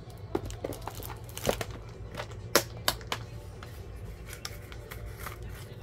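Paper stickers and small craft pieces rustling and clicking as they are sorted through in a box, with scattered light taps and one sharper click about two and a half seconds in. A low steady hum runs underneath.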